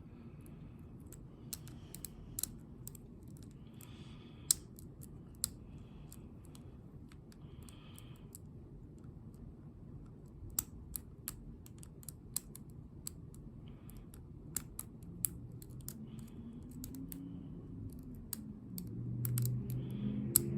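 Small metallic clicks and taps of lock picking tools working inside a Ruko lock cylinder, coming at irregular intervals, a few of them sharper and louder.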